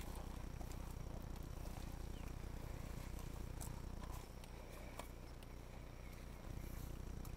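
Low steady rumble with a few faint, scattered sharp clicks and snaps. The rumble dips for a couple of seconds about two-thirds of the way through.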